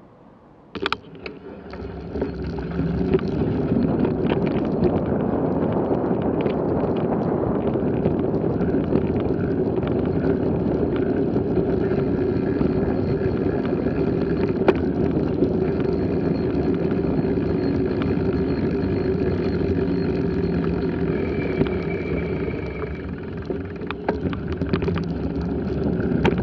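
Riding noise from a moving bicycle: a sharp click about a second in, then wind rumble on the microphone and rolling tyre noise build over the next two seconds as the bike gets going, and run on steadily.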